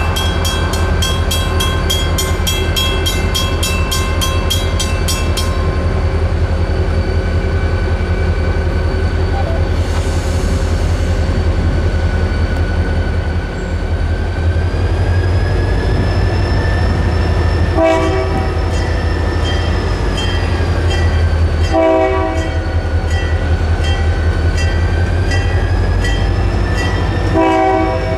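A diesel locomotive's engine runs with a steady low rumble as it creeps up to a grade crossing. The crossing bell rings rapidly until about five seconds in, then stops, and later the locomotive's horn gives three short blasts.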